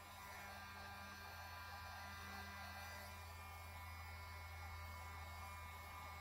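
Electric heat gun running, its fan motor giving a faint, steady hum.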